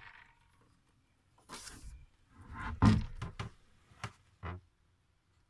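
Irregular knocks and thumps in a small boat cabin, from someone moving through it: a short rustle, then a cluster of thumps about three seconds in, the loudest, and two lighter knocks after.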